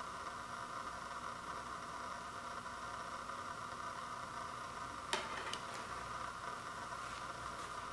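A compact disc set down on a hardwood floor: a sharp click about five seconds in, followed quickly by two lighter taps, with two faint ticks near the end. A steady hiss runs underneath.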